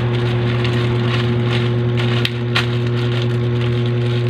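A steady low hum runs throughout, under a few sharp clicks and crackles from a parcel being handled and opened.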